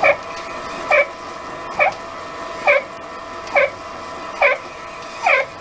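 Pillar drill boring a wooden block with a fly-cutter on a guide: a steady machine whine with a short, falling squeak repeating very regularly, about once a second.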